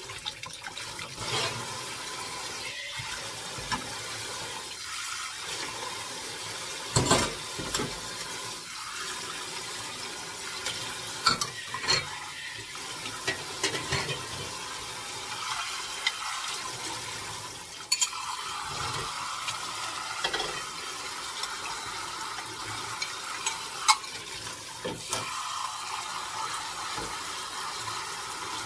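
Kitchen faucet spraying water steadily onto dishes in a stainless steel sink as they are rinsed by hand, with sharp clinks and clatters now and then as dishes and a pot lid knock against the steel sink and wire rack.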